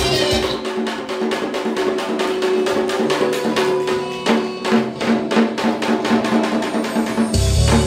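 Korean barrel drum (buk) beaten with wooden sticks in a fast, even run of strikes on the head and shell. About seven seconds in, a deep bass backing track comes in underneath.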